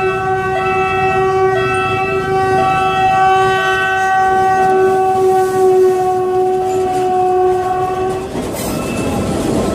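Horn of a PNR commuter train (GE U6B diesel locomotive with ex-JR EMU 203 coaches) held in one long, steady blast on approach to a level crossing, cutting off about eight seconds in. Then the noise of the train rolling past.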